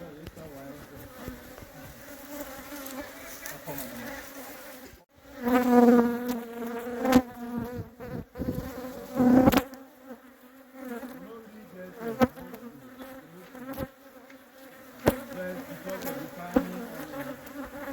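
Honeybees buzzing around an opened hive: a steady hum that swells louder a few times as bees fly close, with a few sharp knocks.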